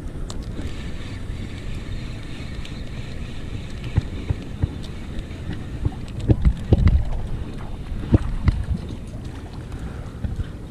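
Wind buffeting the microphone in a steady low rumble, with a few sharp knocks and bumps from about four seconds in, the loudest cluster a little before the middle of the second half.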